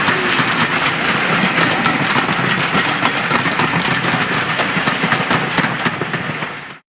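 Passenger coaches of a steam-hauled train rolling past close by, their wheels clicking over the rail joints amid steady rumble. The sound fades and cuts off abruptly near the end.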